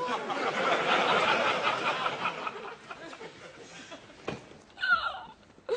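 Studio audience laughter, a sitcom laugh track, fading out after about three seconds. Near the end comes a short wailing cry from a woman.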